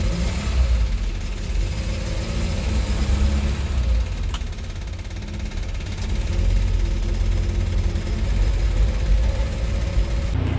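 Small four-cylinder engine of a 1972 Peugeot 204 running as the car is driven. It eases off a little before halfway and picks up again about six seconds in.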